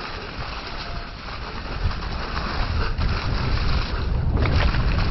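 Wind rush on a mountain biker's helmet-camera microphone with a low rumble, the noise of riding over a muddy, leaf-covered trail, growing louder from about two seconds in.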